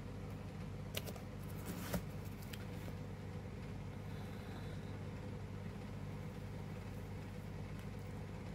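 Steady low hum, with a few small clicks and paper noise about one and two seconds in as a sticker is peeled off its backing and pressed onto a planner page.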